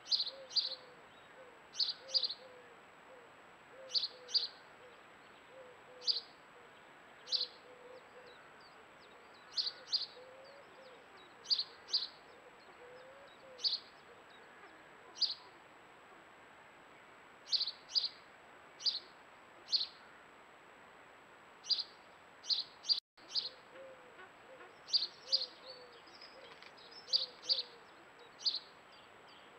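Birds calling: one bird repeats a short, sharp high chirp every second or two, over fainter, lower wavering calls.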